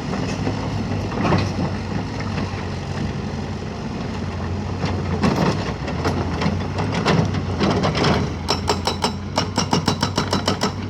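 Caterpillar 312B hydraulic excavator's diesel engine running steadily with occasional knocks. Near the end comes a fast, even run of sharp metallic knocks, about five a second.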